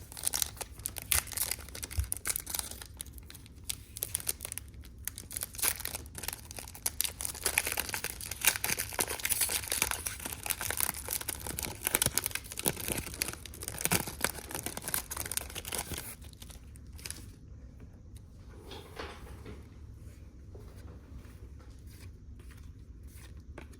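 A trading card pack's wrapper being torn open and crinkled: dense crackling that thins out about two-thirds of the way through into quieter, scattered rustles and clicks.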